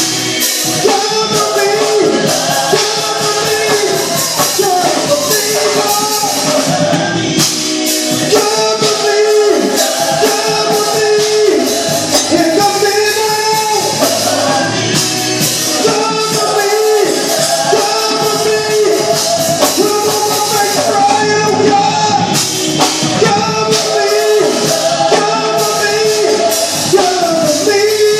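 Gospel praise team singing live with a band: voices in unison holding long notes over a steady drum beat.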